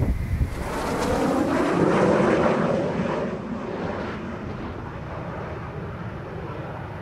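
Eurofighter Typhoon's twin EJ200 turbofan jet engines on landing approach, swelling to a peak about two seconds in as the jet comes close, then easing to a steadier, lower sound.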